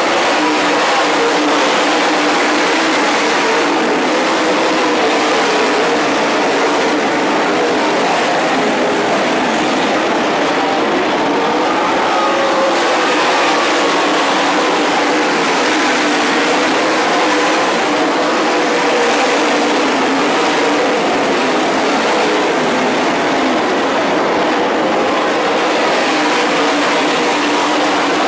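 A field of winged sprint cars racing, their V8 engines running hard together in a loud, continuous din. Several engine notes overlap, rising and falling in pitch as cars go by.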